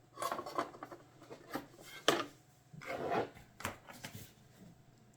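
A picture frame being handled as a photo print is fitted into it: a run of sharp clicks and knocks with rubbing and scraping between them.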